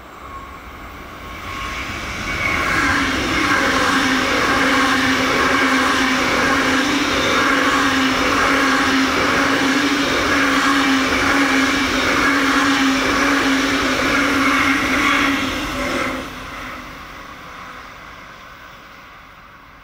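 ICE high-speed electric train passing at speed. The rolling noise swells over the first few seconds and holds steady with a low hum for about thirteen seconds, then drops sharply as the train clears and fades away.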